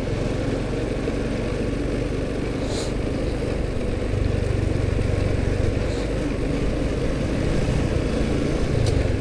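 Motorcycle engine running steadily while riding, its low hum growing a little stronger about four seconds in, under a constant rush of wind and road noise on the rider's microphone.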